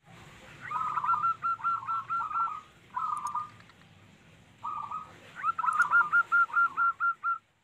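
Zebra dove (perkutut) cooing: quick runs of short rising notes, about four a second, with short pauses between phrases. The longest runs come near the start and again near the end.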